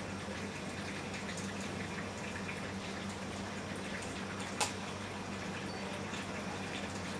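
Aquarium water bubbling from an air curtain, bubbles breaking at the surface in many small ticks, over a steady low hum from the pump. A single sharp click about four and a half seconds in.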